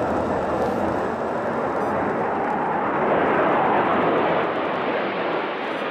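Su-24 jet bombers passing low overhead: a jet roar that swells to its loudest about three and a half seconds in, with a sweeping change in pitch, then fades.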